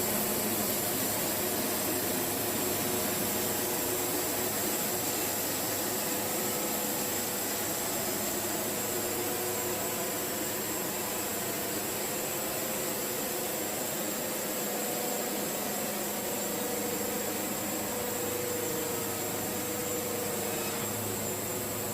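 Wood-Mizer LT70 band sawmill running steadily, its band blade sawing a log into boards.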